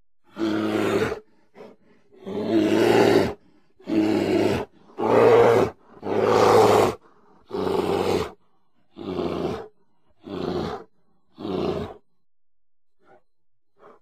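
A bear roaring again and again: about ten rough, loud roars of half a second to a second each, evenly spaced. The last few are quieter, and they stop about twelve seconds in.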